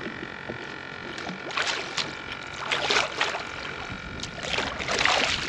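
Water splashing in three short bursts as a hooked redfish thrashes at the surface beside a kayak.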